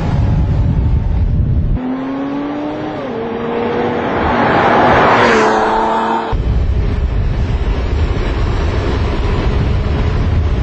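Porsche Cayman S six-cylinder engine and exhaust under hard acceleration: the note climbs, drops at a gear change about three seconds in, then climbs again to its loudest near five seconds in before dropping at another shift. Before and after this run a heavy low rumble covers the engine.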